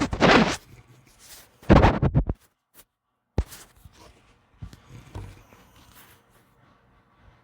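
Noises from a sleeping pit bull: two loud, harsh bursts about a second and a half apart, the second broken into quick pulses, then a sharp click about three and a half seconds in and a few softer sounds after it.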